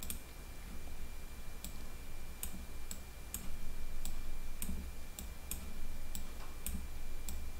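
About a dozen light computer mouse clicks at uneven intervals, starting about a second and a half in, over a faint steady high-pitched whine.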